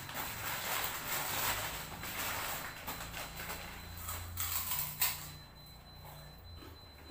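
Thin plastic bag crinkling and rustling as it is handled and opened, then a single sharp click about five seconds in, after which the sound drops away.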